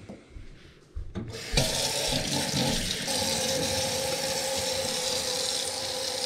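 Kitchen faucet turned on about a second in, then water running steadily into a hammered copper sink, splashing over a gutted trout held under the stream to rinse it.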